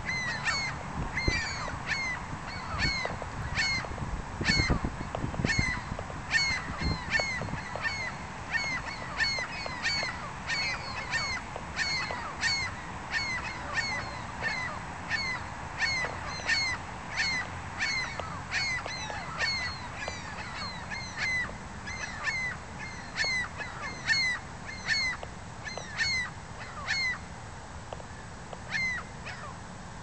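A flock of gulls calling without a break: short, sharp calls repeated about two or three times a second and often overlapping.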